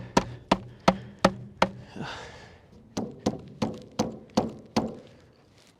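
Hammer blows driving a deck railing panel into place: a quick run of five strikes, a short pause, then six more, about three a second.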